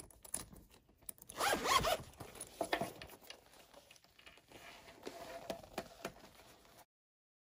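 The zip-around zipper of an AVEEPA leather travel jewelry case being pulled open. There is a loud rasp about a second in, followed by quieter zipping and handling, and the sound cuts off suddenly near the end.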